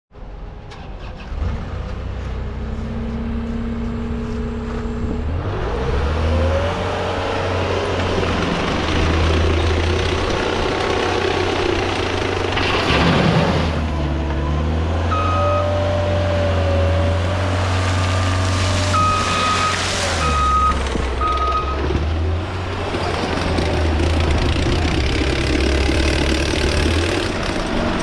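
ASV VT70 compact track loader's diesel engine running and revving up as the machine works. A reversing alarm beeps in short runs partway through.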